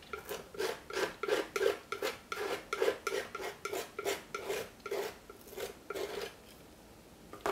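Metal palette knife scraping quickly back and forth over a dry painted panel, spreading a thin layer of clear cold wax medium, about three strokes a second. The strokes stop a little after six seconds in.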